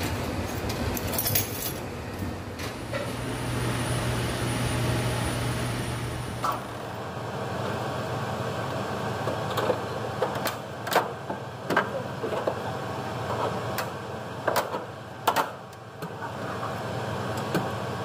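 Steady hum of running HVAC fan machinery with a faint high whine. About six and a half seconds in it gives way to a quieter hum with scattered metallic clicks and knocks from hands working on a fan coil unit's blower motor and housing.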